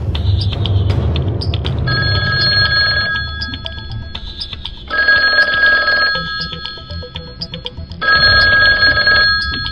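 A phone ringing: an electronic ring of steady high tones, sounding three times about three seconds apart, starting about two seconds in.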